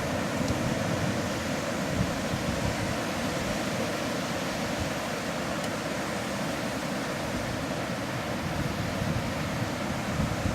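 Steady wash of sea surf on a beach, with wind buffeting the microphone.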